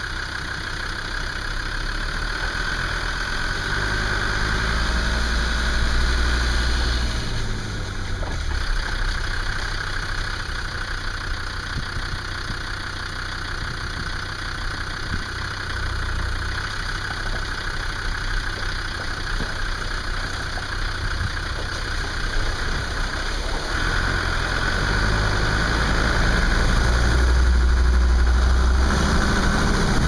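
Land Rover Defender 90 TD5's five-cylinder turbodiesel engine running at low speed, heard close up from the bonnet. It swells louder twice, a few seconds in and again near the end.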